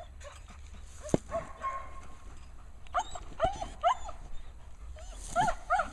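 German Shepherd dog whining in short, high yips, a few around the middle and a few more near the end. A single sharp click comes about a second in.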